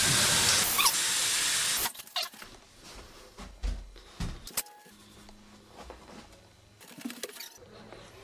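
Running water, a loud steady rush as of a shower, that cuts off abruptly about two seconds in. Then quiet room tone with a faint low hum and a few light clicks and knocks.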